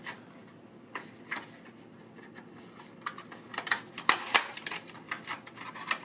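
Cardboard SSD retail box being opened by hand, the card insert and drive slid out. It gives scattered small clicks and rustles of cardboard and packaging, thickest about four seconds in.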